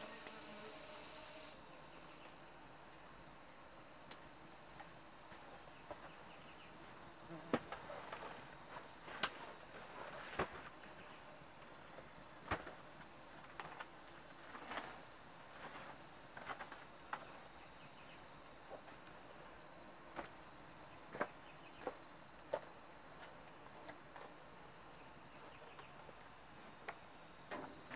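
Insects buzzing in a steady, high-pitched drone, with scattered clicks and knocks throughout, the sharpest around 7 to 10 seconds in and again around 21 to 23 seconds in.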